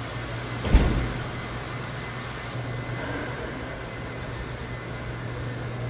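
Steady low machinery hum in a hall of stainless-steel wine tanks and pumps, with one sharp thump about a second in.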